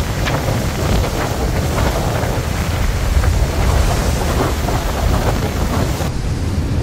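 Strong storm wind buffeting the microphone with a steady low rumble, over the hiss of heavy surf breaking along the beach. The hiss drops away about six seconds in, leaving the rumble.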